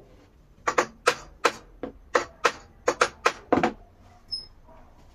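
A quick series of about ten sharp knocks, roughly three a second, from work on a glued pine frame held in bar clamps. The last knock is the heaviest, and a brief high chirp follows.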